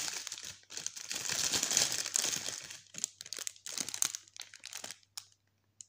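Clear plastic bags and cosmetic packaging crinkling and rustling as a pile of makeup is rummaged through by hand. Dense crinkling at first, then thinning to scattered clicks and rustles that stop about five seconds in.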